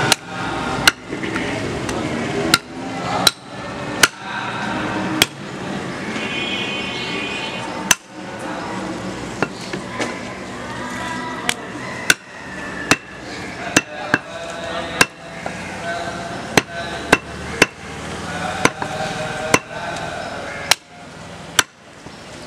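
Heavy butcher's cleaver chopping goat meat on a wooden stump block: about twenty sharp, irregularly spaced chops, with a pause of a few seconds before the middle.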